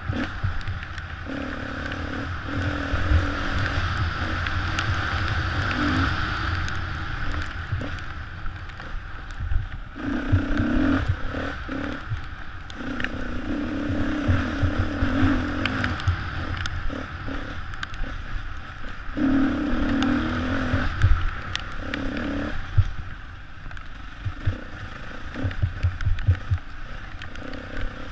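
Enduro motorcycle engine heard from the rider's helmet, its note rising and falling as the throttle opens and shuts along a bumpy forest trail. Knocks and clatter from the bike going over the rough ground run underneath.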